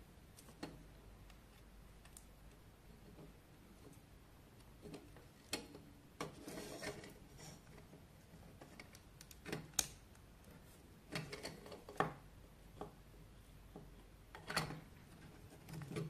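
Quiet handling of hollow plastic flashlight housing parts and a DC barrel plug: scattered light clicks and knocks, with a short rustle about six seconds in.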